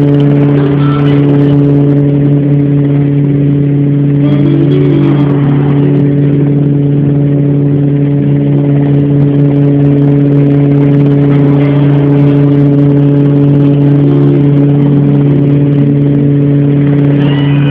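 An engine running steadily at one constant pitch, a loud even drone.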